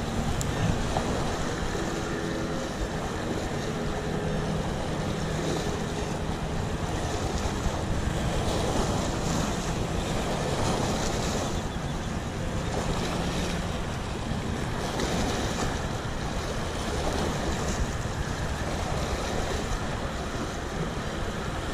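Wind buffeting the microphone over the wash of small waves along the shore, with a faint low steady hum through the first half.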